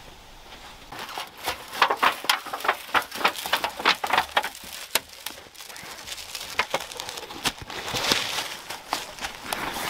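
Dry fallen leaves crunching and rustling, with a quick run of sharp scrapes and clicks as gloved hands work a metal tool and pole on the leaf-littered ground, busiest from about a second in to the middle and again near the end.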